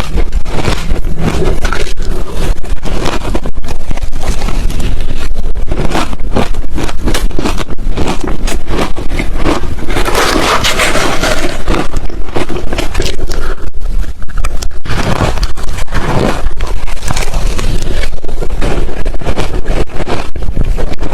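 Ice being chewed close to the microphone: loud, rapid, dense crunching with no pause. A brighter, thicker stretch of crunching comes about halfway through.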